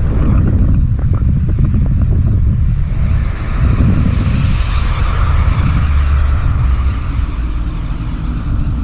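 Wind buffeting the microphone: a loud, steady low rumble with a hiss above it.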